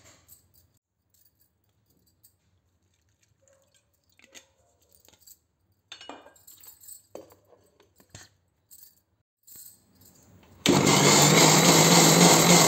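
Electric mixer grinder switched on about ten seconds in, starting abruptly and running at full speed with a steady low hum, grinding coriander, green chillies and ginger into chutney. Before it, faint scattered clinks and knocks of chillies dropped into the steel jar and the jar set onto the base.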